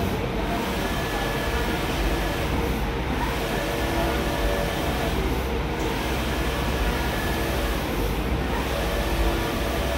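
Large-format inkjet printer running while it prints a flex banner: a steady machine hum of fans and drive, with a change in the sound about every two and a half seconds as the print-head carriage sweeps across.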